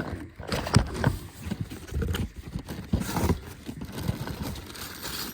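Irregular knocks, clunks and rustling as the parts of a diesel heater kit are handled, moved about and set down while being unpacked.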